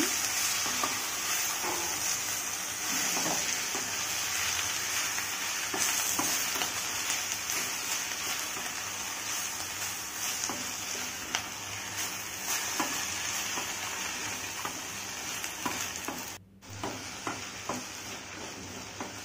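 Moringa leaves sizzling in hot oil in a metal kadai while a wooden spatula stirs and scrapes through them: a steady frying hiss with frequent light scrapes against the pan. The sound drops out for a moment near the end.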